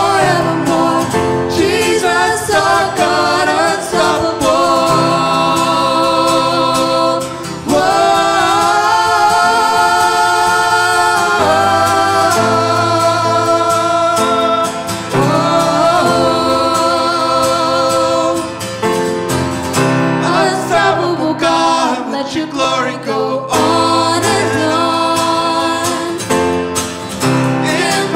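Live worship song: acoustic guitar and grand piano playing, with singing on long held notes.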